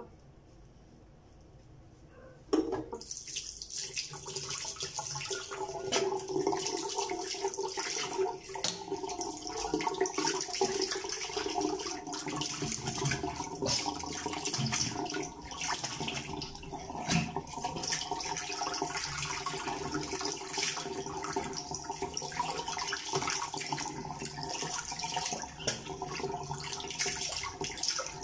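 Tap water running into a bathroom sink. It is turned on about two and a half seconds in, then runs steadily with irregular splashes as it is used for rinsing after a shave.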